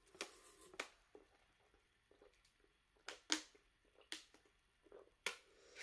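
A person drinking from a plastic bottle: a handful of short, soft clicks and gulps of swallowing, spaced out over quiet.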